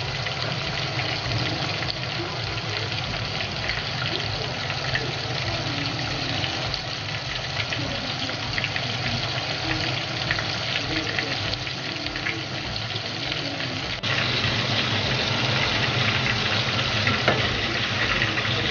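Cornstarch-coated pork pieces deep-frying in hot oil: a steady sizzle full of fine crackles, which gets louder about fourteen seconds in.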